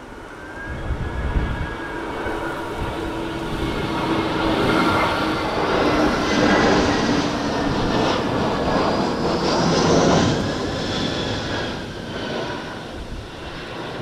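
Airbus A320-214's CFM56 turbofan engines on approach to land, passing the listener: a jet rush that builds, peaks and then fades, with whining engine tones that slide in pitch as the aircraft goes by. Wind buffets the microphone with a low rumble about a second in.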